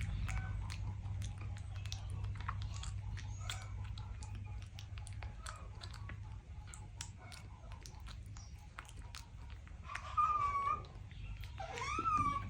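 Baby monkey chewing, a run of small crunching clicks over a low steady hum, then two short high squeaky calls near the end.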